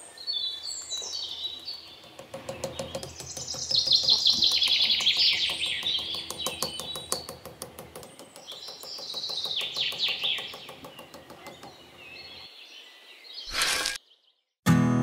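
Birds chirping and singing, with repeated falling chirps over a fast, rattling trill. Near the end it breaks off into a moment of silence, and strummed acoustic guitar music begins.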